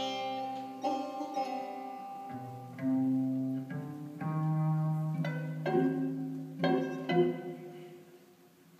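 Instrumental Persian classical music: long held notes from a bowed string instrument over sharply plucked tar notes, dying away near the end.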